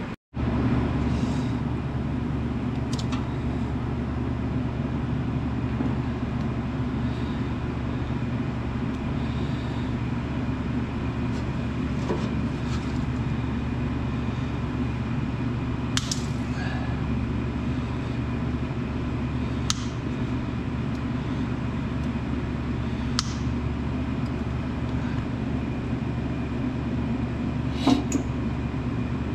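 Skid steer loader's diesel engine running steadily, with a few sharp clicks or knocks over the top, the loudest near the end.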